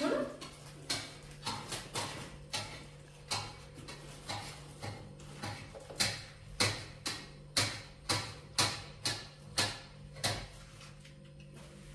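Short, sharp clicks and crackles, irregular at about one to two a second, from people eating and handling food at a table, over a faint steady hum.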